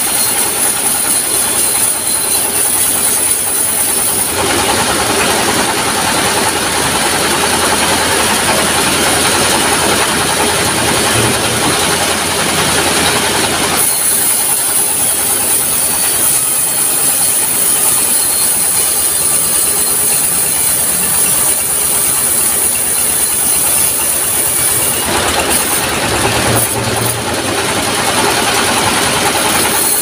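Diesel-powered sawmill saw running steadily as it rips a long timber beam lengthwise. It makes a continuous loud mechanical noise with a high hiss that fades a few seconds in, returns strongly about halfway through and turns uneven near the end.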